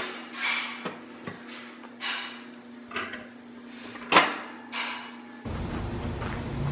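A wire oven rack clinking on a tile counter and a dark enamelware pot with a glass lid being set onto it: a few light knocks and one sharper knock about four seconds in, over a faint steady hum. Near the end a steady low outdoor rumble takes over.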